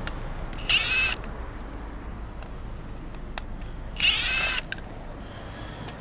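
Power drill-driver with a T20 Torx bit briefly whirring as it backs two small screws out of a plastic fuel-flap lock actuator housing: two short whirs, about a second in and about four seconds in.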